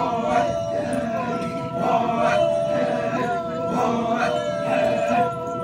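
A Sumi Naga war-dance troupe chanting together in unison, held notes with a rhythmic stress repeating about once a second.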